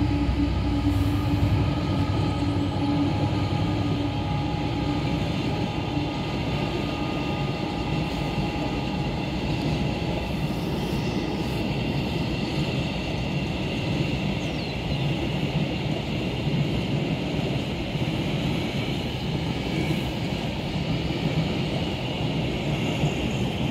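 Freight train's wagons rolling along the track: a steady rumble of wheels on rail with faint, steady high tones over it.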